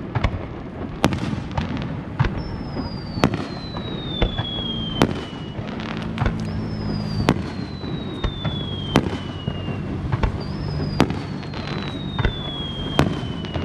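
Aerial firework shells bursting in a string of sharp booms, about one every second or two. Three long whistles from whistling fireworks run through the bursts, each falling steadily in pitch over about three seconds.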